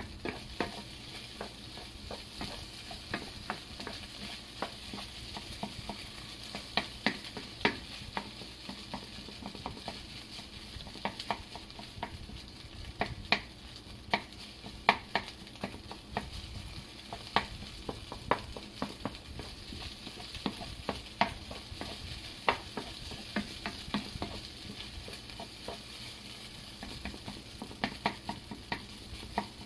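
Wooden spatula stir-frying rice in a nonstick frying pan: irregular taps and scrapes of the spatula against the pan over a steady faint sizzle.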